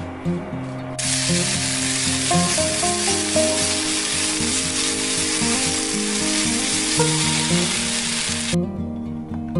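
Sliced green onions sizzling as they fry in oil in a frying pan while being stirred with a spatula. The sizzling starts about a second in and cuts off suddenly near the end, over soft background music with plucked notes.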